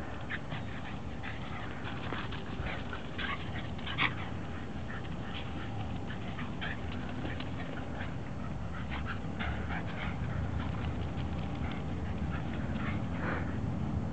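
Two Shiba Inus play-wrestling, giving many short, scattered dog noises, the sharpest about four seconds in, over a low steady rumble.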